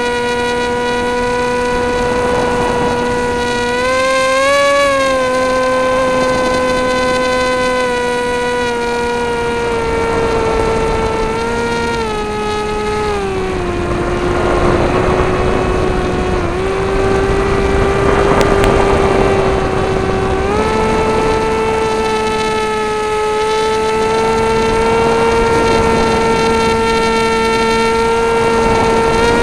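Brushless electric motor and propeller of an Easy Star RC plane whining steadily, heard from on board. The pitch dips about halfway through and comes back up a few seconds later, with wind rushing over the microphone.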